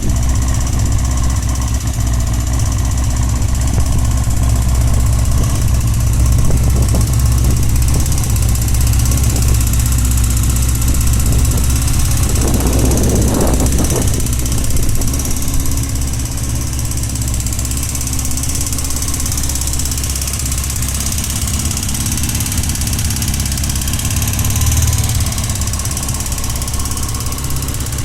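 Honda CBX 550 F motorcycle's air-cooled inline-four engine idling steadily, carrying the abnormal mechanical noise that the owner hears coming mainly from the right side of the engine. About halfway through there is a short burst of extra noise, and after it the engine runs a little quieter.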